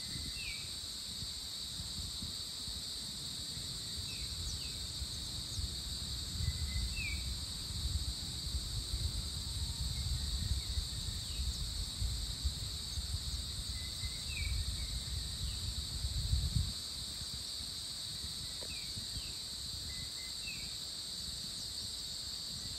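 Dawn chorus of tropical insects: a steady high-pitched buzzing trill with short chirps every second or two. A low wind rumble on the microphone runs underneath and stops suddenly about three quarters of the way through.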